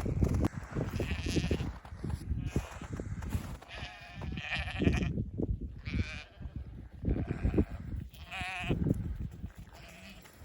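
Sheep bleating: about five separate wavering calls spread through the stretch, over a low uneven scuffing noise.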